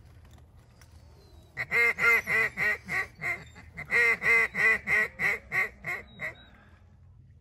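Two loud strings of hen-mallard quacks blown on a double-reed duck call, the first about seven notes and the second about nine, at roughly three notes a second and tailing off at the end: a call to draw passing ducks into the decoys.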